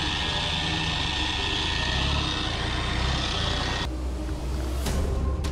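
Land Rover 4x4 engine running off-road, with a steady hiss over it that stops suddenly about four seconds in, followed by a sharp knock near the end.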